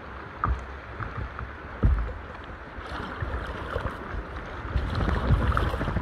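Water lapping and splashing around a stand-up paddleboard as it is paddled, with a low wind rumble on the microphone. There is a dull knock about two seconds in, and the water sound grows fuller from about halfway.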